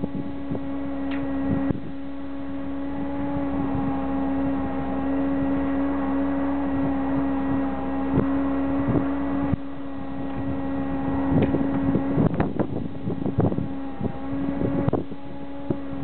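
Steady mechanical hum, like a machine or engine running, with gusts of wind buffeting the microphone and a few sharp clicks.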